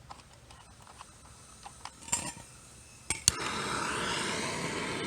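Light metallic clinking, then two sharp clicks about three seconds in, followed by a steady rushing hiss of flame starting up as the coal forge is lit.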